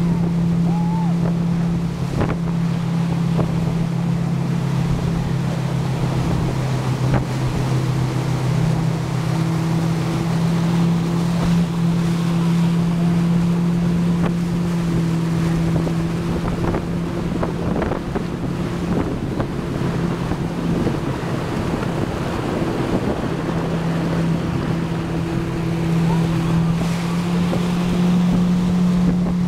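Motorboat engine running at steady cruising speed under load while towing a tube, a steady drone, with water rushing in the wake and wind buffeting the microphone.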